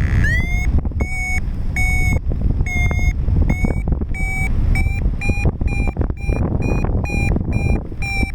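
A paragliding variometer beeping its climb tone. The beeps come about once a second at first, then quicken to two or three a second and rise slightly in pitch as the lift strengthens. Wind rumbles on the microphone throughout.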